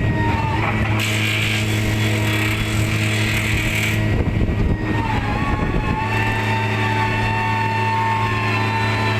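Heavy construction machine's engine running steadily, with a hiss early on that stops at about four seconds and a steady high whine joining about five seconds in.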